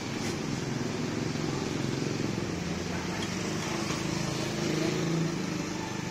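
Roadside street ambience: motor vehicles running past with a steady engine hum, a little louder about five seconds in.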